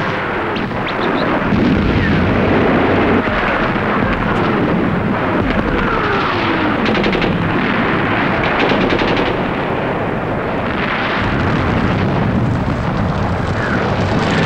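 Battle sound on a war-film soundtrack: continuous rifle and machine-gun fire over a dense rumble of explosions. A fast run of machine-gun shots comes about seven to nine seconds in, and a few falling whistles sound shortly before it.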